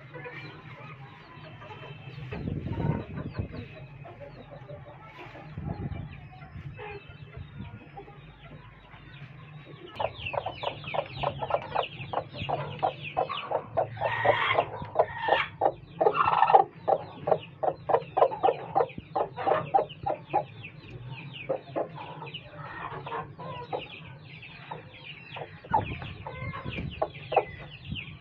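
Chickens clucking, with a long run of rapid clucks, several a second, starting about a third of the way in and lasting roughly ten seconds.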